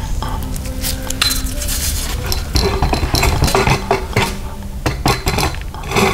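Metal hand tools clinking and clattering as they are handled and set down, a quick irregular run of knocks and clinks over a steady low hum.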